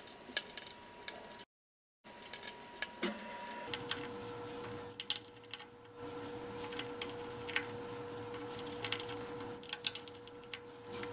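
Light metallic clicks and ticks of a small Phillips screwdriver taking the tiny screws out of an iPod Touch 4th generation, over a steady electrical hum that gets louder about four seconds in. The sound cuts out completely for about half a second early on.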